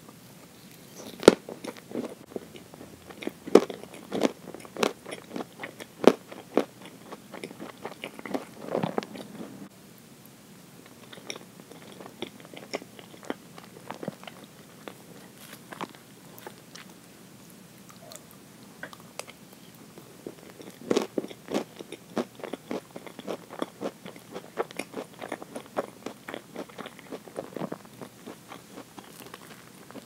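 Close-miked eating of Mont Blanc roll cake topped with nuts and chestnuts: biting and chewing, with soft wet mouth sounds and sharp crunchy clicks. The sounds come thick for the first ten seconds or so, thin out through the middle, and pick up again about two-thirds of the way through.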